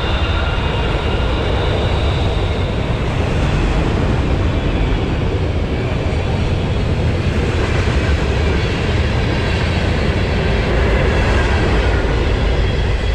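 Tornado winds: a loud, steady roar of wind, heaviest in the deep low end, without a break.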